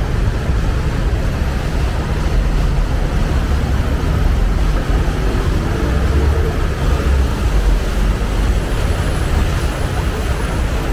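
Steady city street noise dominated by a heavy low rumble, with no distinct events.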